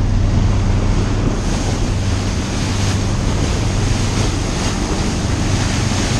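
Water rushing and churning along the hull of a fishing boat under way, with wind buffeting the microphone and the steady low drone of the boat's engine underneath.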